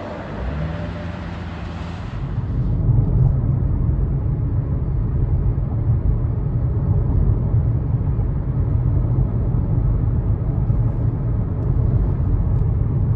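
Steady low rumble of a car on the move, road and engine noise heard from inside; a higher hiss fades out about two seconds in.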